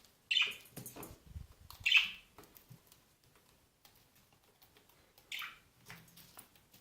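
Cockatiels giving three short, harsh calls, with small clicks in between.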